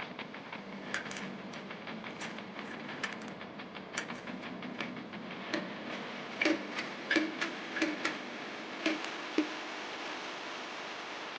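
Rapid small clicks and clatters of toilet tank parts being handled and fitted, over a steady hiss, with a run of louder clacks, some briefly ringing, in the second half.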